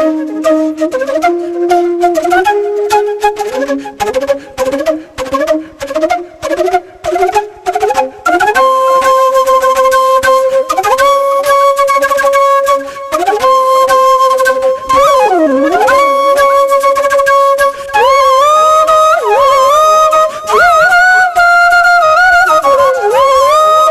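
Background music: a solo flute melody. It opens with short, separated notes climbing step by step, then from about a third of the way in moves to long held notes with sliding pitch bends and ornaments.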